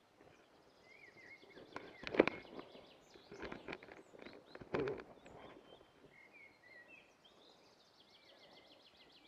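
Songbirds singing, with short chirps and fast trills throughout; a few knocks and rustling about two to five seconds in, the loudest a sharp knock about two seconds in.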